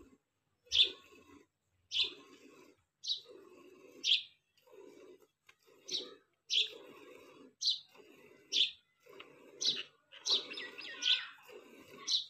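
Milk squirting from a cow's teats into a stainless steel pot during hand milking: short, sharp hissing squirts about once a second, a dozen in all, each with a duller sound of the stream striking the pot.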